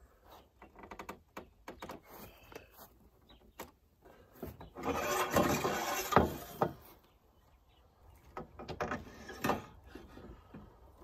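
Metal greenhouse hoop tubing being pulled by hand around a hoop bender: the tube scrapes and creaks against the bender with scattered clicks, loudest in a scraping stretch of about two seconds in the middle.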